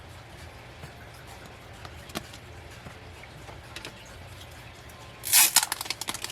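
Handling of photo cards and their packaging: a few light clicks, then about five seconds in a loud crinkling rustle followed by a run of quick small crackles. A faint steady low hum runs underneath.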